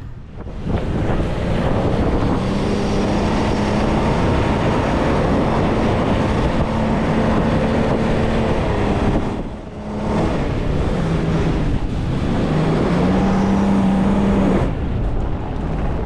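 A vehicle engine running while driving, with a low engine tone that rises and falls a little over a steady rush of wind and road noise. The sound drops away briefly about ten seconds in.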